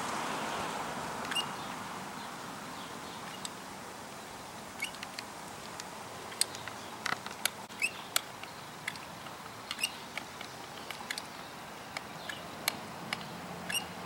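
Caulking gun working: the trigger and plunger rod give short, sharp clicks at irregular intervals, coming more often in the second half, as sealant is pushed out of the tube into a concrete crack. Under them is a faint steady hiss that dies away over the first few seconds.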